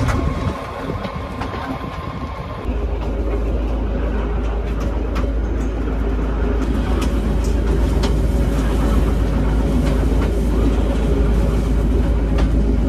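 Passenger train running along the track: a steady rumble with occasional clicks of the wheels on the rails. A deep low rumble comes in about three seconds in and holds steady.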